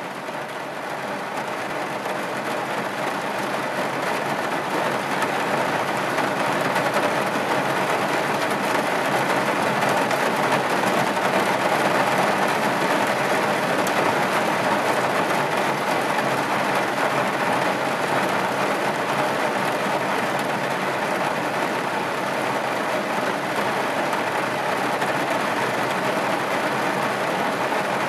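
Heavy rain pouring down, a steady rushing hiss that swells over the first few seconds and then holds.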